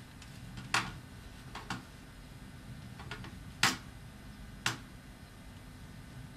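Scattered clicks of a computer mouse and keyboard: about half a dozen separate clicks, the loudest about three and a half seconds in.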